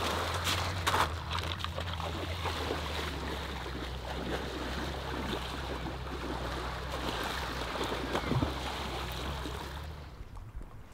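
Splashing of a person wading into shallow sea water, with a steady low rumble beneath. The sound drops away shortly before the end.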